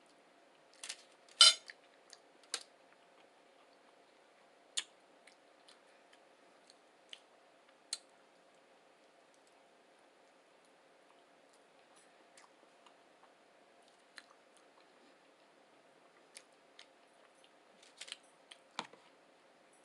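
Eating sounds of someone chewing a breakfast burrito: scattered wet mouth clicks and smacks, one loud sharp one about a second and a half in and a cluster near the end, over a faint steady hum.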